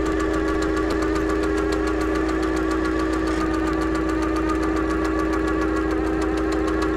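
Mechanical sound effect for an animated logo intro: a steady machine hum with a fast, even ticking running through it.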